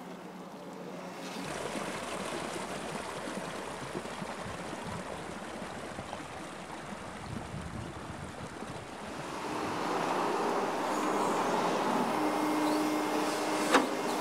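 Water gushing steadily from a plastic drainage pipe outfall into a muddy channel. About ten seconds in this gives way to a hydraulic excavator running with a steady whine, and a single sharp clank near the end.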